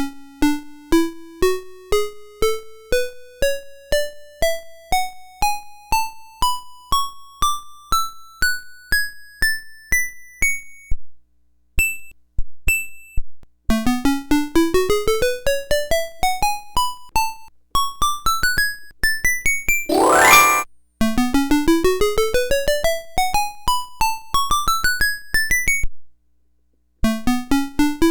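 VTech Alphabet Fun Desk toy's electronic keyboard tones playing rising scales, one short note at a time: a slow climb of about three notes a second, a pause about eleven seconds in, then faster rising runs with a quick upward sweep near twenty seconds.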